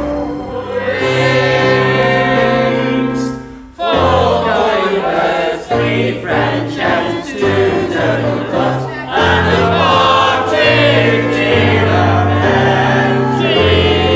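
A choir singing a song over low sustained accompaniment; the music cuts out briefly about four seconds in, then the singing resumes.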